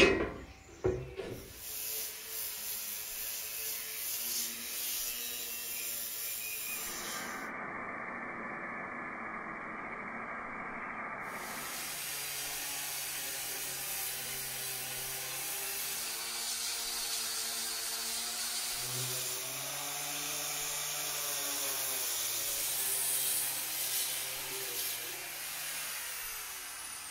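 A corded handheld power sander with a round disc running and sanding a wooden tabletop. Its motor pitch wavers as it is pressed on and eased off the wood, over a steady rasping hiss. A sharp knock comes at the very start.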